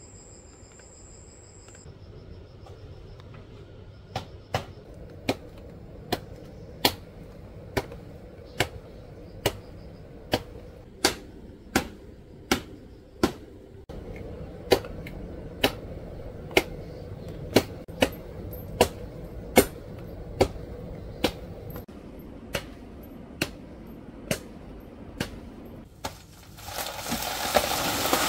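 Steady chopping, one sharp knock a little more than once a second, kept up for about twenty seconds. A short rustling burst follows near the end. Crickets trill faintly over the first seconds.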